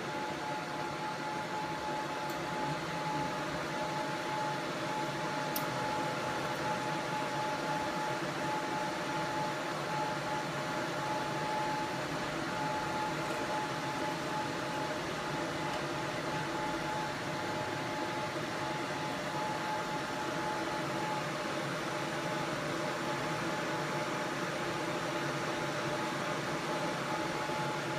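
Steady fan hum with a constant mid-pitched whine that fades out late on, machine noise in an electronics repair shop.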